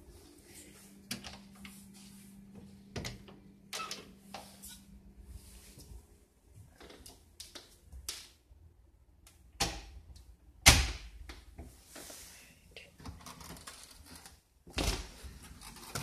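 Clicks and knocks of a door being handled and opened, with two loud thumps about eleven and fifteen seconds in. A steady low hum runs under the first six seconds.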